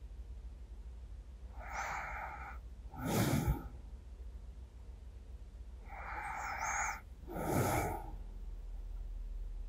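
A person's slow, deep breathing close to a binaural microphone, as in sleep: two breaths, each a softer part followed by a louder one.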